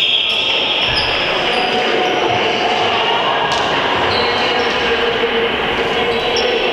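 Basketball court din in a reverberant sports hall: short high squeaks of basketball shoes on the wooden floor over a steady wash of noise with a high-pitched tone held throughout.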